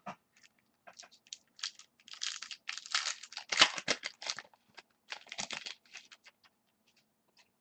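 Foil trading-card pack wrappers being handled, torn open and crinkled by hand: an irregular run of crackles and rustles, busiest in the middle.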